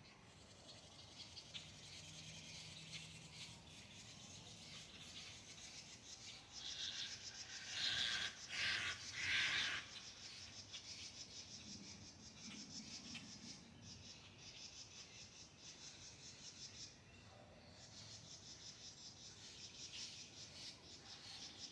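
Faint, steady trilling of insects such as crickets, with a louder rasping stretch about seven seconds in that lasts roughly three seconds.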